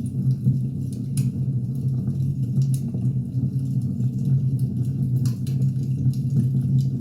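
Wood fire burning: a steady low rumble with scattered crackles and pops, the sharpest snaps about a second in, near three seconds and just past five seconds.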